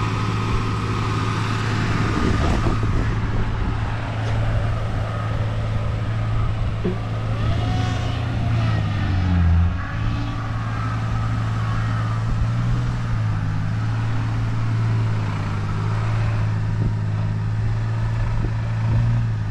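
Four-wheel-drive engines running as a bogged Toyota LandCruiser 80 Series is snatch-strapped backwards out of a deep mud rut. The engine note holds steady, then dips and rises in pitch about eight to ten seconds in, as the vehicle comes free.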